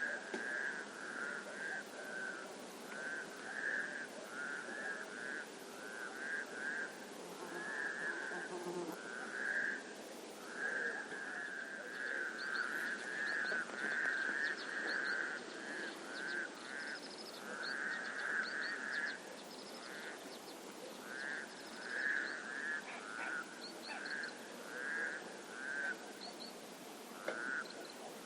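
Frogs calling in a chorus: short trilled croaks follow one another almost without a break. About halfway through, faint high chirps join in.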